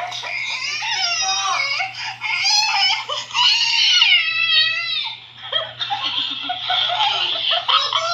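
A young girl's high-pitched squealing and giggling in several stretches, the pitch wavering up and down. A faint steady low hum sits underneath.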